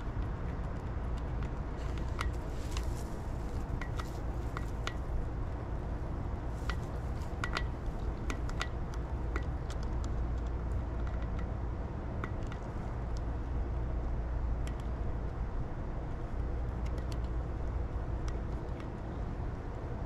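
Scattered small clicks of a screwdriver working the clamp screws of a banded pipe coupling, most of them in the first half, over a steady low outdoor rumble.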